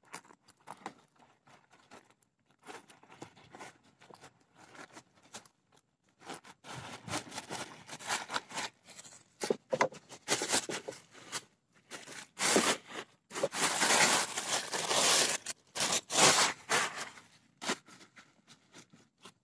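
Close handling noise: irregular scraping, rustling and crackling rubs, sparse at first and becoming denser and louder about two-thirds of the way through.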